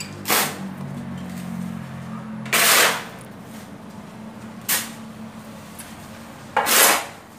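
A heavy hammer striking a concrete floor, four hard blows about two seconds apart, breaking it up.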